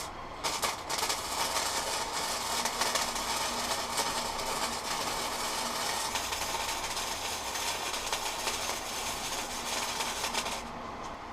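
Electric arc welding on steel: after a click, the arc runs with a steady crackling sizzle, starting about half a second in and cutting off about a second before the end.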